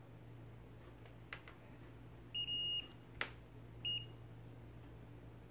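Handheld digital multimeter beeping as its rotary selector dial is turned: clicks of the dial about a second and a half in, a half-second beep a little past two seconds, another click, then a short beep near four seconds, over a steady low hum.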